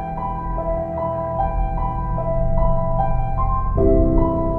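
Background piano music: a steady pattern of repeating notes, with a change of chord near the end.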